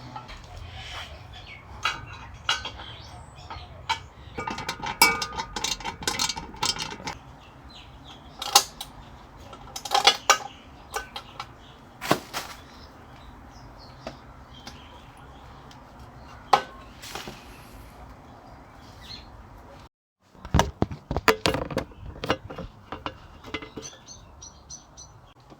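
Metal tools and parts clinking and clanking as bolts are undone and a motorcycle skid plate is handled: a run of irregular sharp clanks and rattles, thickest a few seconds in and again after a short dropout about twenty seconds in.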